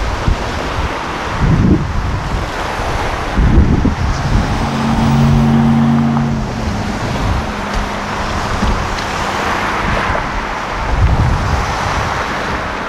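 Road traffic passing close by: cars and trucks driving past with tyre noise and wind buffeting the microphone, and one vehicle's engine humming steadily for about two seconds near the middle.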